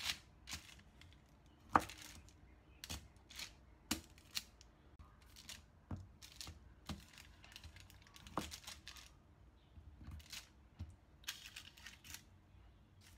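Large kitchen knife chopping through chewy purple sweet potato dodol with peanuts, the blade knocking down through baking paper onto a wooden cutting board in irregular chops, with light paper crinkling. The loudest knock comes about two seconds in.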